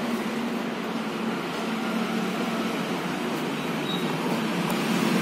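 Steady background noise with a faint low hum, with no distinct knocks or other events.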